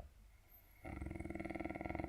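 A man snoring heavily: faint breathing, then a little under a second in a loud, low snore starts with a rapid rattle and carries on.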